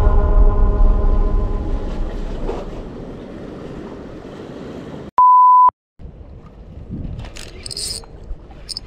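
An edited-in cinematic boom: a deep hit with a ringing chord that fades over about three seconds. Just after the middle comes a single half-second beep at a steady 1 kHz pitch, then wind and surf noise with a brief high chirping near the end.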